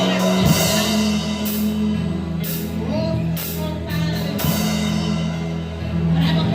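Christian worship music with a full drum kit, cymbals and sustained bass and keyboard chords, without a lead vocal here.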